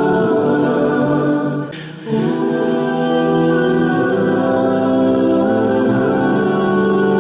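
Background music of long, held chords that change slowly, with a brief dip in level about two seconds in.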